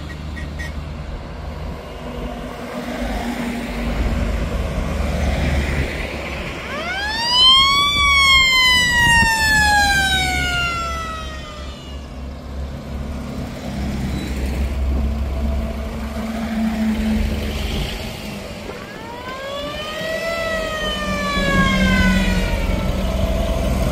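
A mechanical siren winds up and slowly dies away twice: a loud rising then falling wail about seven seconds in, and a weaker one about nineteen seconds in. Under it runs the steady low engine noise of a convoy of WWII-era military jeeps and trucks driving past.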